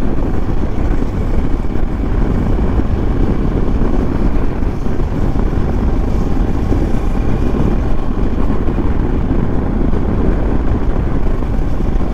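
Kawasaki Versys motorcycle running at a steady cruising speed, its engine hum buried under heavy wind rushing over the microphone.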